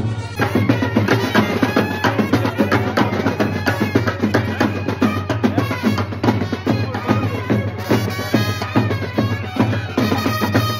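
Street brass band playing: trumpets over a fast, steady beat of bass drums and snare drums.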